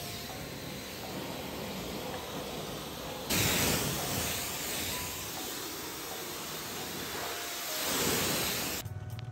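Pressure washer jet spraying a car's wheel and tyre: a steady hiss of water that gets louder and closer about three seconds in. It cuts off just before the end.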